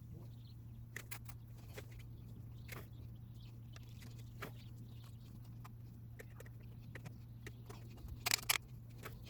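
Faint hand-work noises as a new timing belt is worked onto the cam, crank, water pump and tensioner pulleys of a Honda B20 engine: scattered small clicks and rubs, with a brief cluster of louder scrapes near the end. A steady low hum runs underneath.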